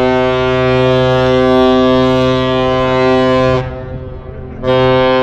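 A deep air horn gives one long, steady blast of about four seconds. About a second after it stops, a second, shorter blast begins: the opening of the long-and-two-short salute exchanged between a departing ship and the lift bridge.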